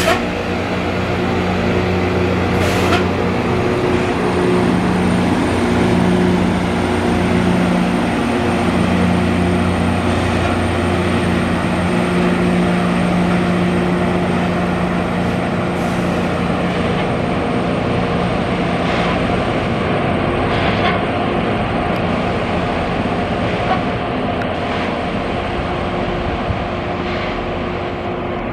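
Loram rail grinder at work: a steady diesel engine drone under the grinding noise of its stones on the rail, with a thin high whine over it that stops near the end. The whole sound eases a little toward the end.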